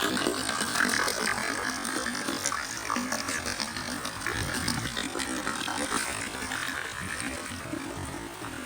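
Light rain falling, many separate drops ticking over a steady hiss.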